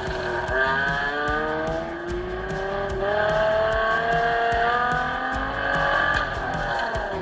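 Car engine working hard during an autocross run, its note climbing in pitch in several long rises as the car accelerates, heard from inside the cabin and replayed through a device speaker.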